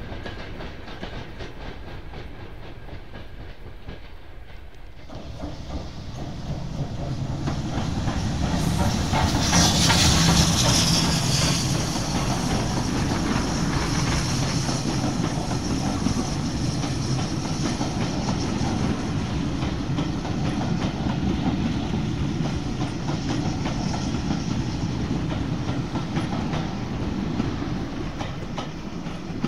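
Steam-hauled passenger train passing close by. About eight to twelve seconds in, the locomotive goes past with a loud burst of steam hiss. After that the coaches roll by with a steady rumble and wheel clickety-clack.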